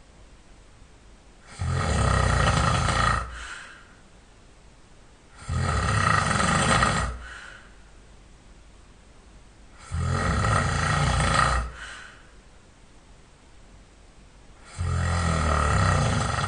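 A sleeping person snoring loudly, in a steady rhythm: four long snores, each lasting nearly two seconds, one about every four seconds, with quiet breathing pauses between.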